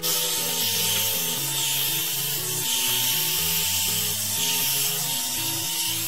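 One-step hot air brush hair dryer with a 1000-watt motor, running on its medium heat setting: a steady rush of air with a thin, even whine. Music plays faintly underneath.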